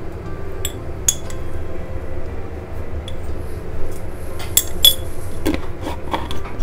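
Steel spoon clinking against a glass jar and a stainless steel pan: a few light clinks, with a quick cluster near the end, over a steady low hum.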